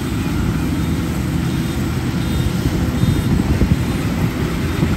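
Zoomlion FH100E tracked rice combine harvester running steadily while harvesting, a deep continuous engine and machinery rumble.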